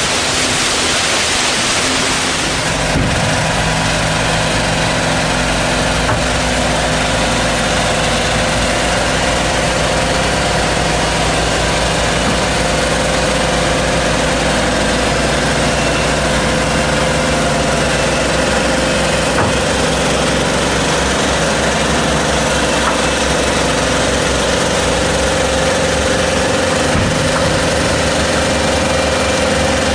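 Wind and water noise for the first couple of seconds, then a heavy-haul modular trailer's diesel power pack running steadily at idle, with a steady high whine over the engine note.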